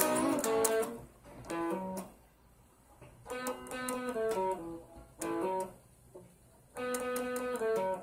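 Guitar music: plucked notes played in short runs, with brief pauses between the phrases.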